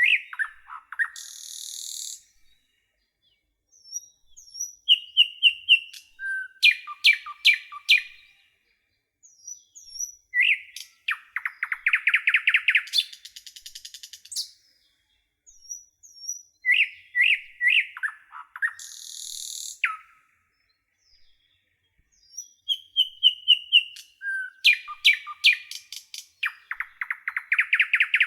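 Songbirds chirping and trilling in quick bursts of clear whistled notes and short buzzy calls, separated by brief pauses; the same run of calls comes round again about halfway through.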